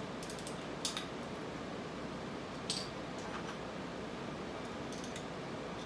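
A few light, sharp metallic clicks and clinks of hand tools on a dirt bike's swing arm bolt and oil drain plug, over a steady low hiss. The clearest clicks come about a second in and just before three seconds.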